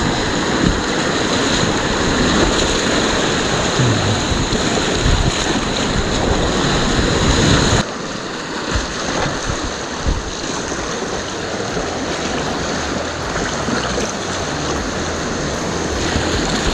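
Loud, steady rushing of whitewater rapids heard close up from a kayak running through them; the sound drops abruptly to a slightly lower level about eight seconds in and carries on.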